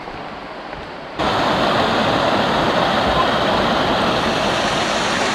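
Steady rush of a tall waterfall's falling water, which jumps suddenly louder and brighter about a second in.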